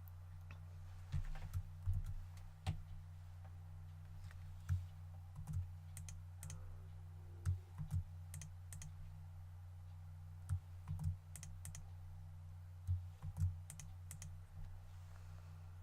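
Computer keyboard keystrokes and clicks in small scattered clusters, from Blender shortcuts being entered while modelling, over a steady low hum.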